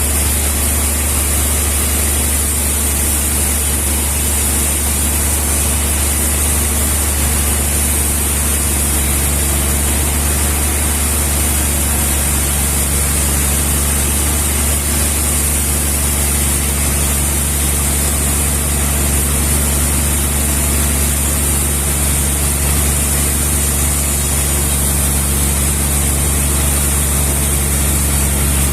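An engine running steadily at a constant speed: a continuous low drone with a high hiss over it, and a slight shift in its tone about 24 seconds in.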